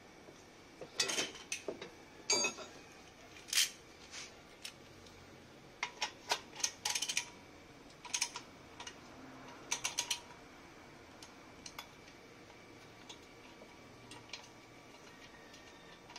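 Irregular metal clicks, clinks and knocks as aftermarket exhaust parts and their mounting bolts are handled and fitted, clustered through the first ten seconds and sparser after.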